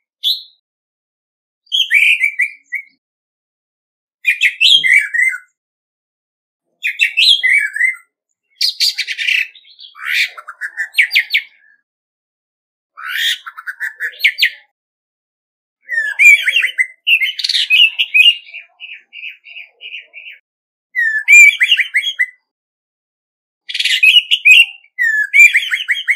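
Orange-headed thrush (male) singing: short varied whistled phrases, one every two to three seconds. Near two-thirds of the way through, one longer phrase ends in a run of quick repeated notes.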